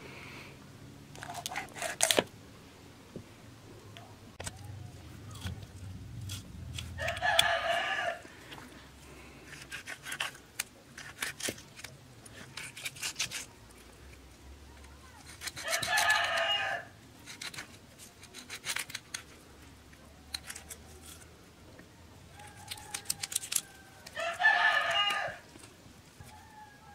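A rooster crows three times, each crow about a second long and roughly eight seconds apart. Between the crows come scattered short knocks and scrapes of a knife working a fish on a wooden chopping block, with one sharp knock about two seconds in.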